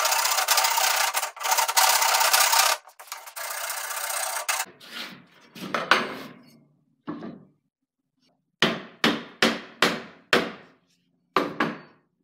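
Flat steel file scraping across a new ash-wood hatchet handle, a steady run of strokes for about the first three seconds that fades out by about five seconds. In the second half come sharp knocks, five quick ones about half a second apart and then two more.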